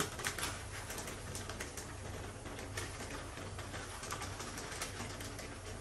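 Crinkling and rustling of a flour bag as flour is poured from it into a pan of boiling water, a run of short sharp clicks over a steady low hum.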